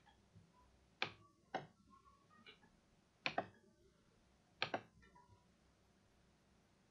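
Computer mouse button clicking in pairs, three pairs of sharp clicks in the first five seconds, as a colour is chosen from a drop-down menu.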